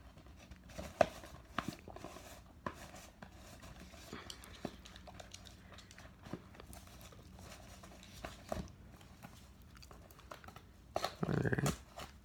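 Cardboard box and packaging being handled and opened: scattered light clicks, taps and rustles, with a sharper click about a second in and a short louder sound near the end.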